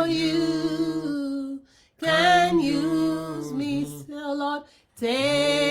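A solo voice singing a worship song unaccompanied, in three long held phrases with short pauses for breath between them.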